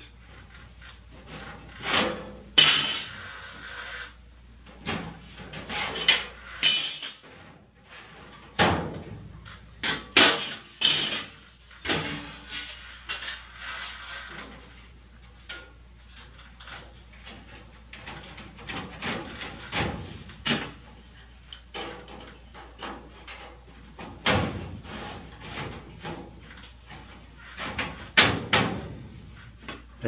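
Galvanized sheet-metal duct parts clanking and rattling as they are handled and fitted together: irregular metallic knocks and scrapes, with a few sharp bangs scattered through.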